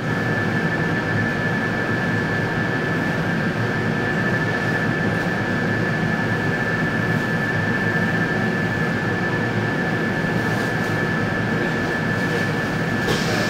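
Steady hum of an ET2M electric train's onboard equipment, heard from inside the carriage while the train stands at a platform: a constant high whine over a low drone. A brief hiss comes near the end.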